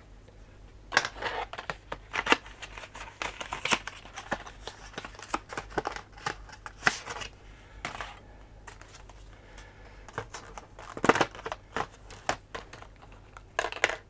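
Cardboard box and clear plastic clamshell tray of a 2.5-inch SSD being opened and handled: irregular clicks, taps and crinkles, the sharpest about a second in, near seven seconds and about eleven seconds in.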